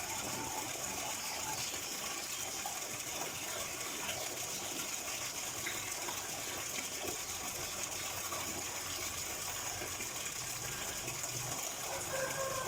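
Flowing water running in a steady, unbroken rush.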